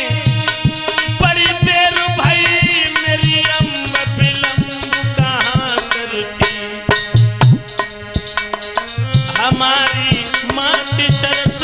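Indian devotional folk music: tabla playing a steady, quick rhythm under a sustained melody with fast wavy ornaments.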